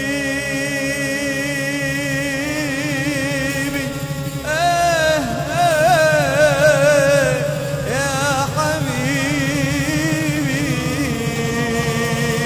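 Male voices chanting an Arabic devotional madih: a lead singer's ornamented, wavering melody over steady notes held by a chorus of men. The lead grows louder for a few seconds near the middle, then settles back into long held notes.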